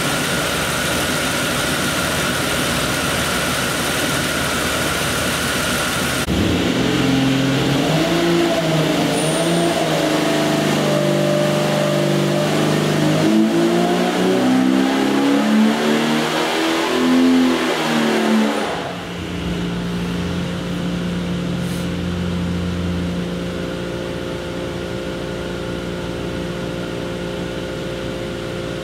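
Jeep 4.6 litre stroker inline-six running on an engine dynamometer. It runs steadily at first, then about six seconds in it is loaded and pulled through a dyno sweep with its pitch climbing over about twelve seconds. About two-thirds of the way through it cuts back suddenly to a steadier, quieter run.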